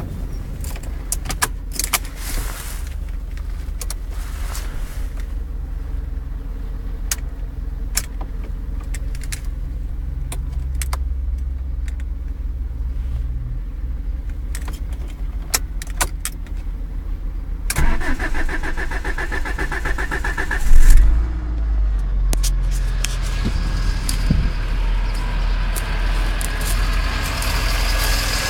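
Alfa Romeo 155 2.0 Twin Spark 16V inline-four being started: a few clicks, then the starter cranks rapidly for about three seconds before the engine catches with a loud surge and settles into an idle. The owner is chasing a mysterious noise from the engine bay, which he suspects is worn alternator bearings.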